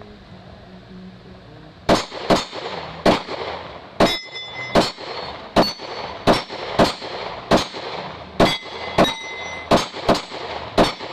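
Glock 23 .40 S&W pistol fired about fourteen times at a steady, unhurried pace, starting about two seconds in. Many shots are followed by the high ring of steel targets being hit.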